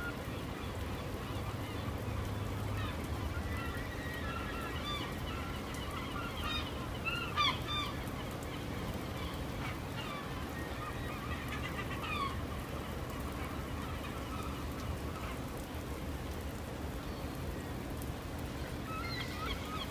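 A flock of gulls calling: many short, overlapping squawks and cries, with a louder burst about seven seconds in, over steady low background noise.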